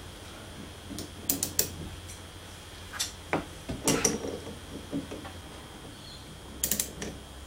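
Scattered metallic clicks and light knocks from a Siege C2 7x12 mini lathe headstock as its spindle is pressed out with a bolt puller and the meshing gears turn. The clicks come in small clusters a second or two apart, with a double knock near the end.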